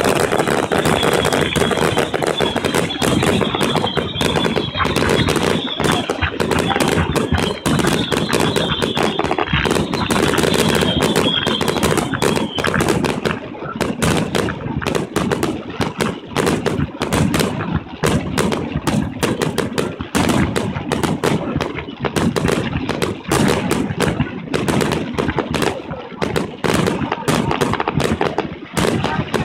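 Fireworks display in a rapid, continuous barrage: aerial shells bursting many times a second with no let-up.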